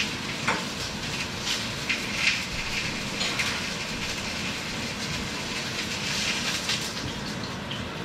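Chicken frying in a pan on the stove: a steady sizzling hiss with scattered crackles and a few clicks.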